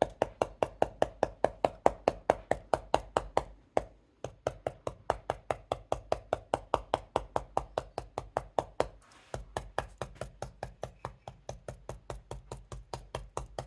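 Dome stippler brush tapping rapidly on the painting surface, about four taps a second, stippling paint on in dots, with a couple of brief pauses to reload the brush.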